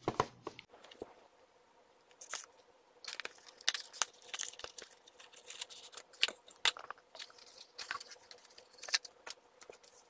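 An HP solid-state drive being unpacked by hand: its cardboard box and plastic tray scrape and crinkle, with irregular sharp clicks and taps. There is a loud click right at the start, and the rustling comes in bunches through the middle.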